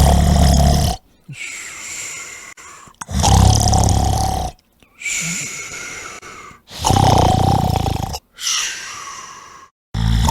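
A man snoring loudly in a comic, exaggerated way: three slow cycles, each a low snore drawn in for about a second followed by a higher, hissing breath out.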